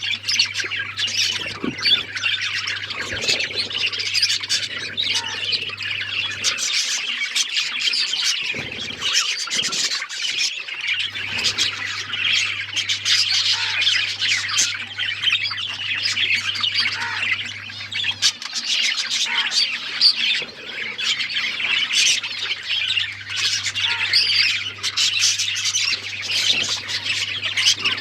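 A group of budgerigars chirping and chattering without a break: a dense, busy warble of short chirps and squawks.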